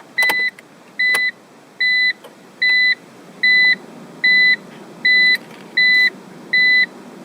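A BMW's in-car warning beeper sounding nine identical steady beeps, about one every 0.8 seconds, over a low steady background noise, with a couple of clicks near the start.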